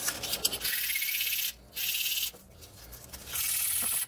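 A small piece of Depron foam rubbed across sandpaper on a wooden sanding block: three scratchy sanding strokes, each under a second, with short pauses between.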